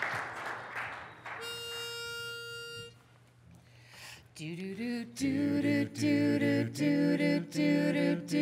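Applause dies away, then a pitch pipe sounds one steady note for about a second and a half. A few seconds later a mixed barbershop quartet comes in, singing close four-part a cappella chords.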